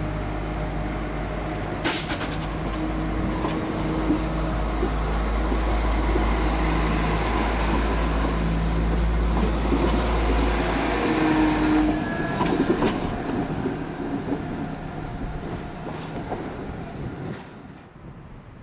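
A Class 172 Turbostar diesel multiple unit's engines run as it pulls out and passes, growing louder up to about twelve seconds in. A few sharp wheel clicks on the rails come as the last coach goes by, then the sound fades quickly.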